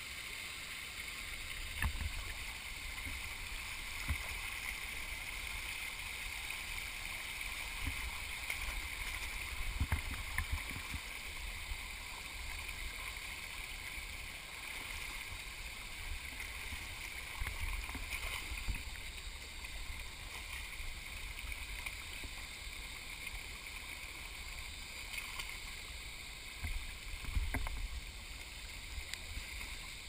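Shallow stream running over rocks, a steady rushing. Irregular low thumps and splashes from feet wading through the water.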